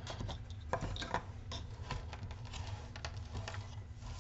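Light clicks and taps of small plastic parts being handled and set down on a table, as 3D-printed enclosure pieces are moved aside, over a steady low hum.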